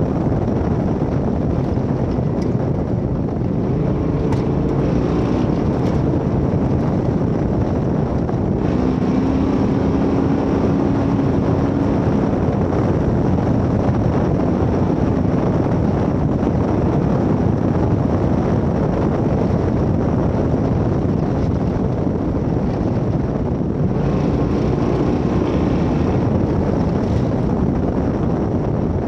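1972 Ford Bronco race truck driving off-road at speed: the engine runs steadily under a dense rumble of wind and road noise, its note shifting a little in pitch now and then.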